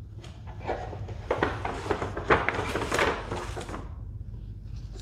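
Stiff paper shopping bag rustling and crinkling as a boxed item is pulled out of it, in irregular bursts that die away about four seconds in, over a low steady hum.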